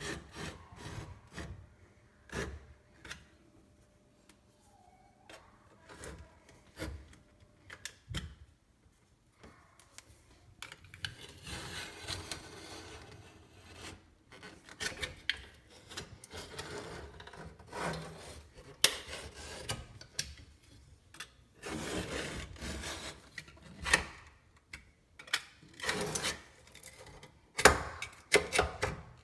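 Hand work on a kitchen sink and its drain fittings: intermittent scraping and rubbing, with scattered knocks and clicks of parts being handled.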